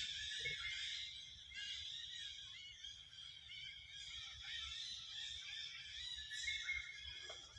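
A dense, steady, high-pitched chirring chorus of outdoor wildlife.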